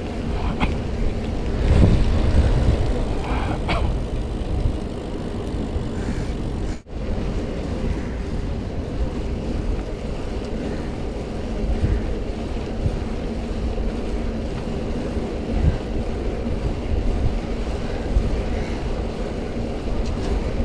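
Steady wind rush on a chest-mounted action camera's microphone, with bicycle tyres rolling on asphalt while riding along. The sound drops out for a split second about seven seconds in.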